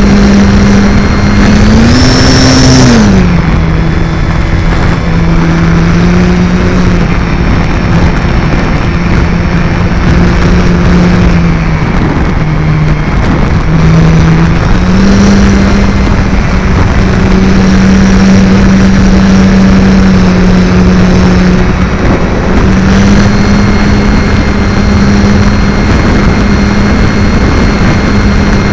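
Multiplex FunCub's electric motor and propeller running with a steady whine, heard from a camera on board the plane in flight, over heavy wind rush on the microphone. The pitch drops a little about three seconds in and rises again about fifteen seconds in. It dips briefly near twenty-two seconds before coming back up.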